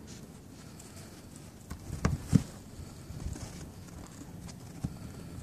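A cat's paws scrabbling and crunching in snow on a car's hood and windshield as it tries to climb, with a few knocks, the loudest a quick pair of thumps about two seconds in.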